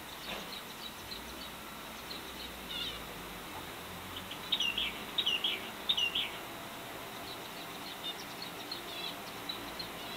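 Pet birds chirping: scattered short, high chirps throughout, with three louder bursts of song about halfway through.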